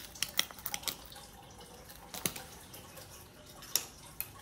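A scatter of short, sharp clicks and taps, a quick cluster in the first second and then a few single ones, from a small leather pouch and gadgets being handled on a stone countertop.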